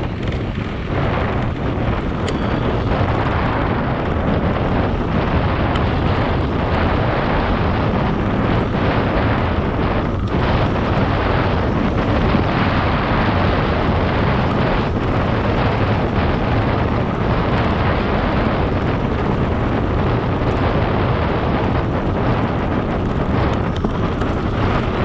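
Wind rushing over the microphone of a bike-mounted camera, mixed with tyre noise, as a mountain bike rolls along at speed. A steady, loud rush throughout.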